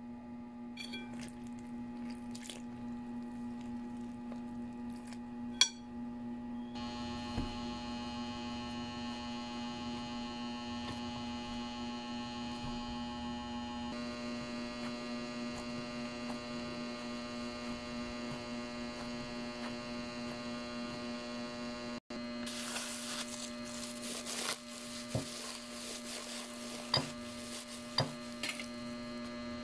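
A steady electrical hum with many overtones, with a few faint clicks in the first seconds and some rustling and a handful of taps near the end.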